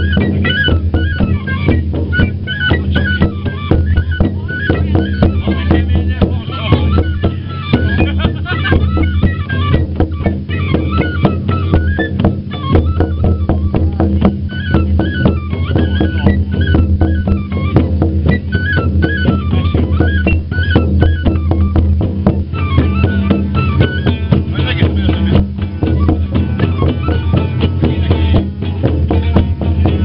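Live Hungarian folk music: a small wooden pipe plays a quick, ornamented melody over a steady low drone and a rhythmic beat. About three-quarters through, the pipe melody drops out and the accompaniment carries on.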